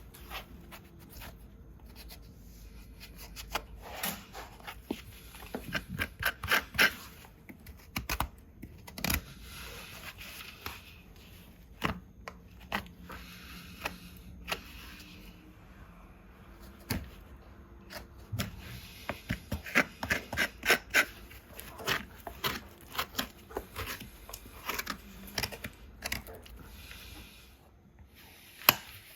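Farrier's hand tools cutting and scraping a horse's hoof: crisp clicks and scrapes of horn being pared and trimmed, in quick runs with short pauses between them.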